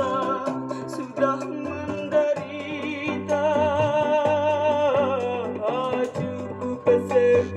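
Vinyl record playing on a turntable: a female singer with band accompaniment, holding one long note with vibrato about halfway through.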